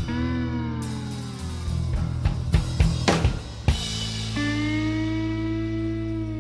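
Background music: a drum kit playing a fill in the middle, with long held guitar notes that bend slightly in pitch, and a new held note entering near the end.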